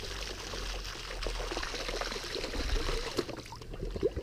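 A plastic bottle held under the surface of a shallow stream fills with water, gurgling as the air bubbles out, over the steady trickle of the stream. The rapid glugs start about a second in and grow thicker near the end.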